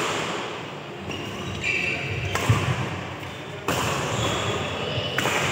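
Badminton racket strikes on a shuttlecock, three sharp cracks about a second and a half apart, echoing in a large indoor hall, with players' voices in the background.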